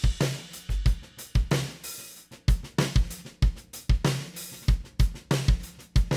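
Drum kit played in a steady groove, showing off a PDP 8x14 Concept Select snare drum with a seamless 3 mm bell bronze shell. Sharp snare strokes sit over bass drum thumps and cymbal and hi-hat hits.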